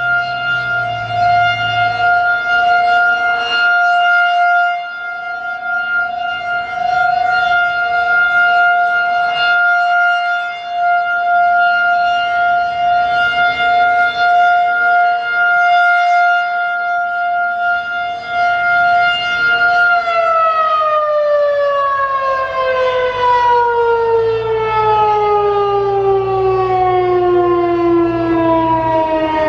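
Federal Signal 2001-DC rotating outdoor warning siren sounding its steady Full Alert tone, swelling and fading a little as the fast-turning head sweeps around. About twenty seconds in, the tone stops holding and winds down, its pitch falling steadily as the rotor slows at the end of the alert.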